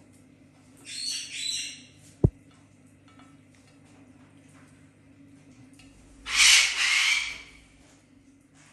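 A male Eclectus parrot giving two harsh, rasping screeches, the first broken in two about a second in, the second around six seconds in. A single sharp knock comes just after the first screech.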